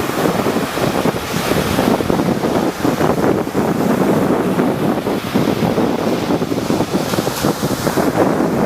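Rough sea waves surging and breaking in a continuous wash, with wind buffeting the microphone.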